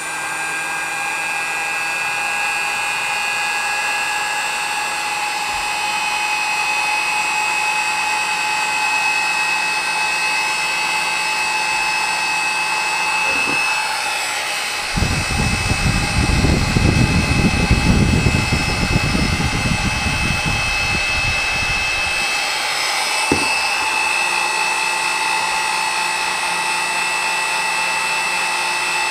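Wagner Furno 300 heat gun running, its fan motor giving a steady blowing whine. About halfway through, a rough low rumble joins for several seconds, set off by a click just before it starts and another just after it stops.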